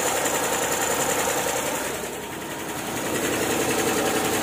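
Small engine running steadily with a fast, even mechanical ticking. It drops in level briefly a little past halfway.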